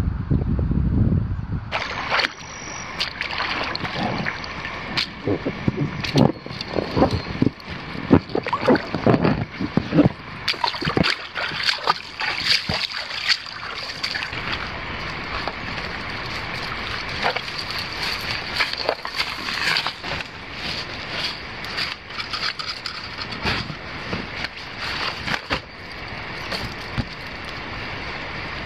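Water splashing, sloshing and dripping around an inflatable packraft as it is paddled along a river, in many irregular sharp splashes that thin out after the middle, over a steady high background hiss. Wind rumbles on the microphone for the first two seconds.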